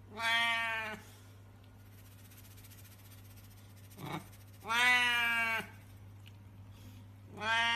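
Domestic cat meowing: three long, drawn-out meows a few seconds apart, each just under a second, with a short mew just before the second.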